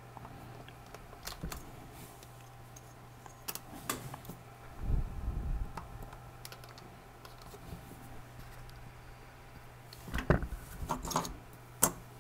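Scattered light clicks and taps of a thin steel blade and a metal ruler against a plastic cutting mat while green stuff putty is cut, with a low thump about five seconds in and a quick run of clicks near the end. A faint steady hum runs underneath.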